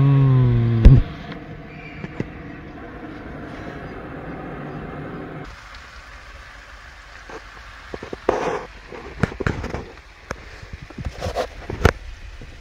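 A short vocal sound and a click at the start, then the steady hiss of a portable gas burner heating a stovetop kettle. After a cut, scattered clinks and knocks of mugs and a French press being handled on the bench.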